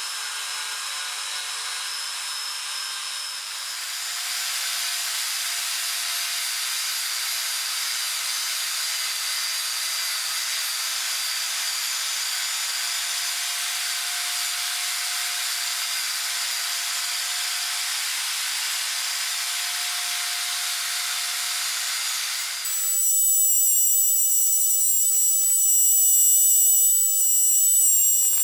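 Electric power tool running steadily with a constant hum and hiss. About 23 s in, the sound cuts over to a louder, higher-pitched whine, as from a faster or smaller tool.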